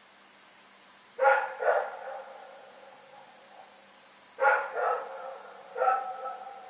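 Dog barking: two barks about a second in, two more about three seconds later, then a single bark near the end, each trailing off in a short echo.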